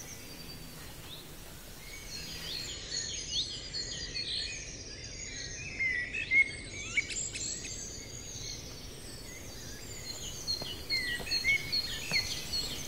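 Several small birds chirping and singing over a soft background hiss, with many quick chirps that fall in pitch.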